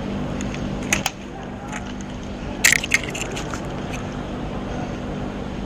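A steady low hum, with a few sharp clicks and rattles about a second in and again in a quick cluster near three seconds.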